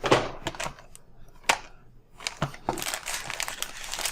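Cardboard packaging knocking and clicking as a keyboard box is handled, then from just under three seconds in the crinkling of a plastic wrapper.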